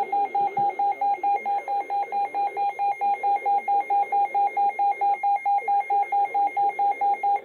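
NOAA weather alert radio sounding its alarm, a loud, rapid beeping of about four or five beeps a second that starts suddenly: the alert for a Severe Thunderstorm Warning.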